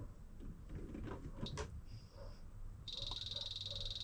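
Electronic beeps from a digital soldering station being set to about 390 degrees: a short high beep about two seconds in, then a longer, louder steady beep from about three seconds in, over a low steady hum.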